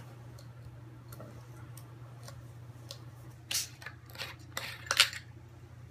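Gas-mask filter being screwed into the mask: handling clicks and scrapes, with a sharp scrape about three and a half seconds in and a louder cluster of clicks and scrapes near five seconds. A steady low hum runs underneath.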